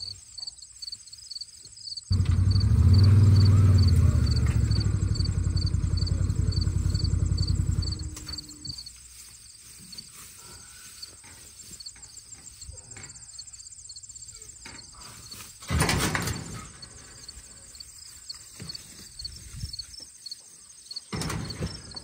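A small vehicle engine starts up abruptly and runs loudly for about six seconds, then dies away, while crickets chirp steadily, about two chirps a second. A single sharp knock comes about three-quarters of the way through.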